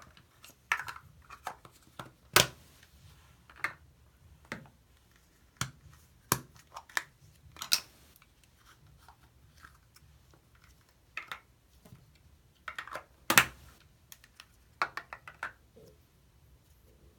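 Hands handling a small plastic Play-Doh tub and taking the dough out: scattered sharp plastic clicks and taps, the loudest a couple of seconds in and again about two-thirds of the way through.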